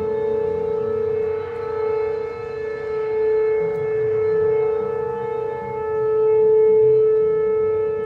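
Outdoor tornado warning siren wailing on one steady pitch, its loudness swelling and fading slowly.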